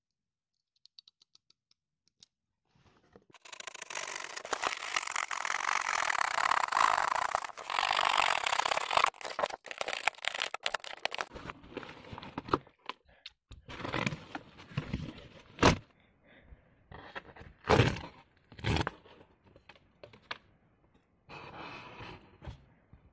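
Corrugated cardboard box being torn apart: a continuous rasping tear starting about three seconds in and lasting some eight seconds, then a handful of separate sharp cracks and thuds.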